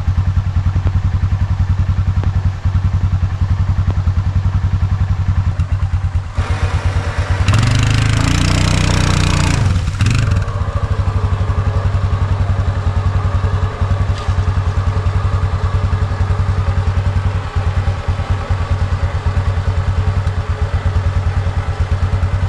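Quad bike engine running steadily under way. About seven seconds in, its revs climb and fall back over a couple of seconds, with a brief rush of noise.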